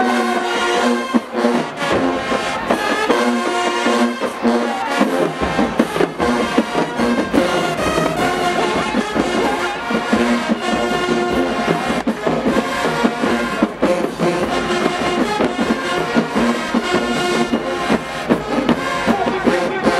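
A brass-heavy marching band playing a dance tune, horns over a steady beat of drums, with the low brass and bass drums coming in about five seconds in.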